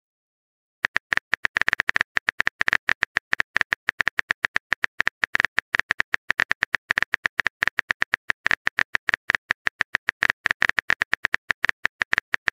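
Typing sound effect: rapid, uneven keyboard clicks, about ten a second, starting about a second in and running on without a break.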